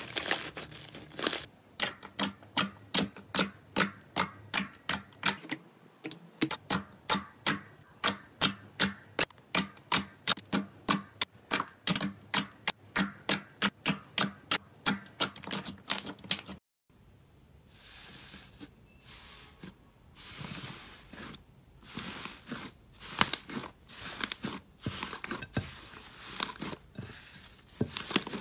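Glossy slime pressed and poked by fingers, giving a long, even run of sharp wet clicks and pops, about three a second. After a break come softer crackling and squishing sounds, growing louder near the end, as slime is kneaded by hand.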